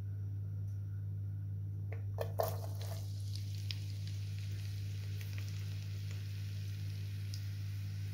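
Chopped onions tipped into hot oil in a frying pan: a few knocks about two seconds in, then the onions sizzling with scattered crackles. A steady low hum runs underneath.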